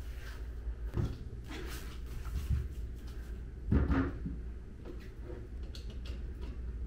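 A few dull knocks and clatters of small objects being handled or set down, the loudest about four seconds in, with light ticks near the end, over a low steady room hum.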